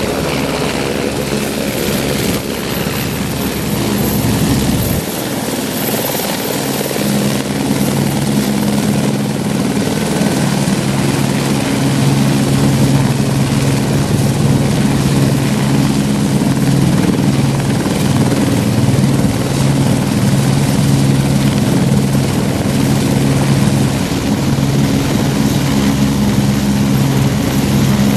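Eurocopter AS355 F2 Ecureuil 2 (TwinStar) twin-turbine helicopter hovering low: its main rotor and turbines run with a steady, loud drone and hum.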